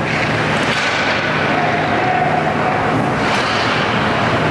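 Ice hockey rink ambience: a steady roar with a low hum under it, and skates scraping across the ice, one sharper scrape about three seconds in.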